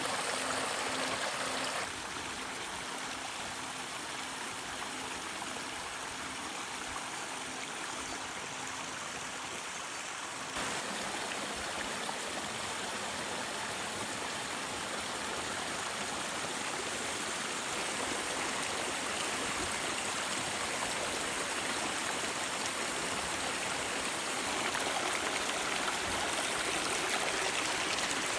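Water running and splashing down a multi-drop pondless waterfall, a steady rushing with no let-up. Its level and tone shift abruptly about two seconds in and again around ten seconds in, and it grows a little louder near the end.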